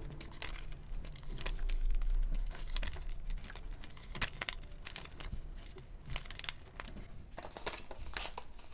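Plastic photocard binder sleeves crinkling and rustling in irregular short strokes as cards are handled and slipped into the pockets.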